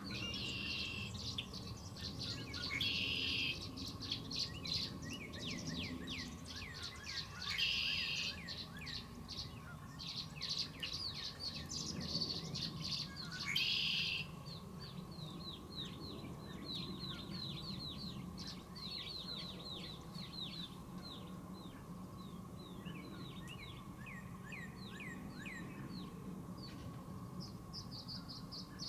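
Tree swallows chirping: many short chirps in quick succession, with four louder, denser bursts of calls in the first half, then a steadier run of chirps.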